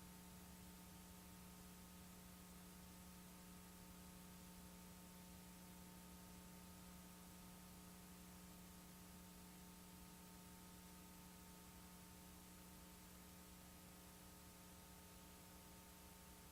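Near silence: a faint, steady electrical hum with a low hiss, unchanging throughout.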